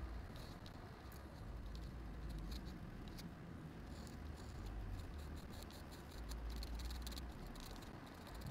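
Metal pen nib scratching on paper in short, quick strokes, with bursts of rapid back-and-forth hatching, over a faint low rumble.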